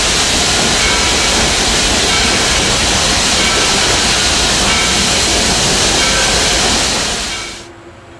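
Loud, steady rushing noise of steam locomotive Southern Railway 2-8-0 #630 running under way, heard from inside its cab. The noise cuts off abruptly about seven and a half seconds in, leaving a much quieter background with a faint steady hum.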